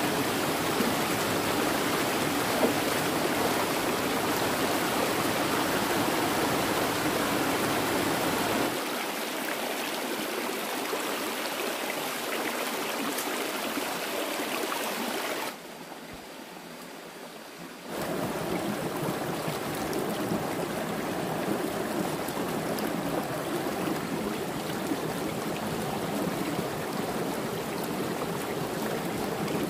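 Stream water flowing steadily, a constant rushing that turns much quieter for a couple of seconds about halfway through.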